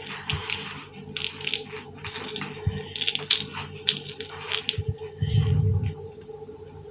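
Small clicks, taps and scratches of craft materials being handled on a tabletop, with a duller thump or rub about five seconds in.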